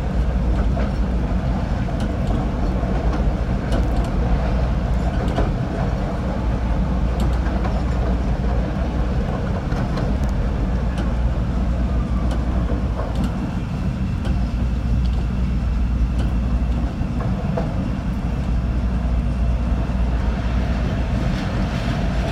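Chicago CTA Green Line train running on the steel elevated track, heard from inside the front car: a steady low rumble with scattered clicks of the wheels over rail joints. A thin high whine joins in a little past halfway as the train nears the next station platform.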